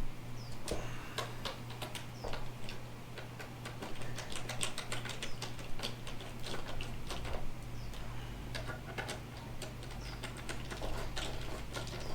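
Rapid runs of small metallic clicks from a hand ratchet driving Torx screws tight on a steering wheel assembly, with pauses between runs. A steady low hum runs beneath.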